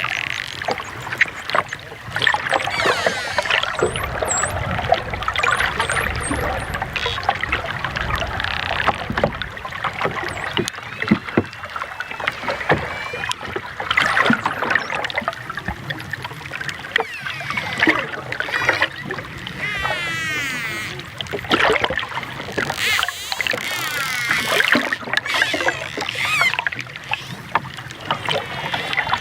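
Dolphins whistling and clicking: many whistles wavering and gliding up and down in pitch, with sharp clicks scattered throughout over a steady rush of noise.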